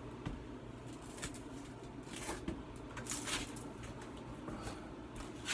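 Faint handling noises, a few light knocks and scuffs, as a refrigerator door is lifted and positioned for its hinge pin, over a low steady hum.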